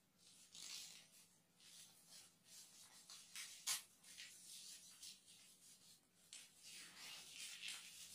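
Faint rustling and crinkling of a small flag being folded and pulled apart in the hands, in a run of soft scrapes, with one sharp tick about three and a half seconds in.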